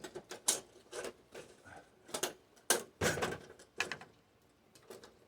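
Irregular clicks and knocks from prying at and handling the snap-fit plastic inner frame and diffuser sheets of a flat-screen TV being taken apart. The sharpest click comes a little past halfway.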